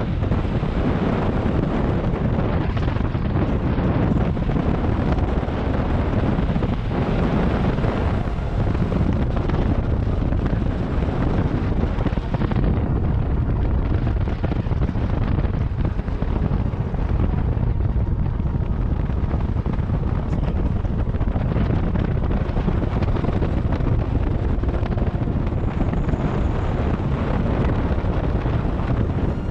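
Steady wind noise buffeting the microphone of a moving motor scooter, a continuous rush heaviest in the low end with no breaks.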